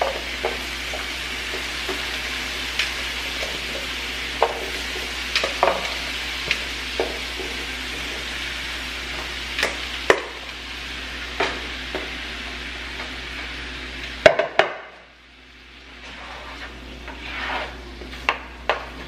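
Pineapple chunks dropped into a hot skillet of melted butter and honey, sizzling steadily, with scattered knocks as pieces land in the pan. About 14 seconds in, a sharp knock comes and the sizzle cuts off suddenly, then comes back fainter with a few more knocks as the pieces are moved around.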